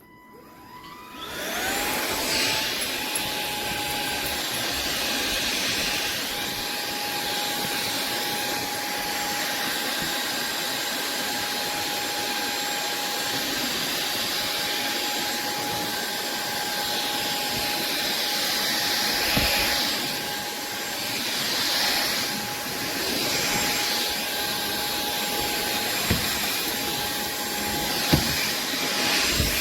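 SunSare cordless stick vacuum switching on, its motor spinning up with a rising whine that settles within about two seconds into a steady high whine over rushing suction air, as it vacuums dog hair from a wooden floor. A few brief knocks sound in the second half.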